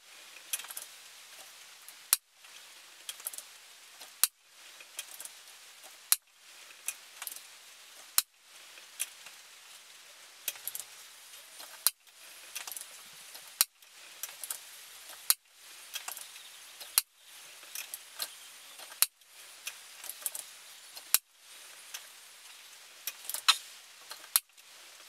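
Unregulated PCP air rifle firing a string of shots, a sharp crack about every two seconds. Between the shots come faint metallic clicks and rattles of the action being cycled and pellets loaded, as the air cylinder is shot down.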